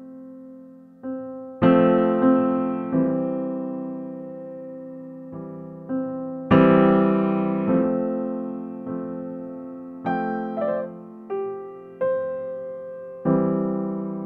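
Background piano music: slow chords struck every second or two, each left to ring and fade.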